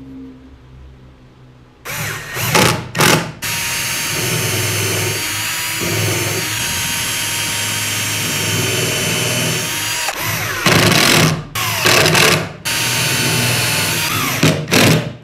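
Red Milwaukee cordless drill boring into pine. A couple of short trigger bursts start about two seconds in, then the drill runs steadily with a thin motor whine for about six seconds. Near the end come more short bursts and a second shorter run.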